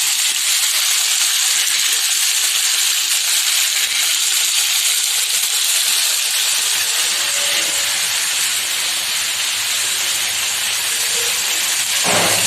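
Chicken kabab skewers sizzling steadily in hot mustard oil and butter on a flat iron tawa, a constant loud frying hiss.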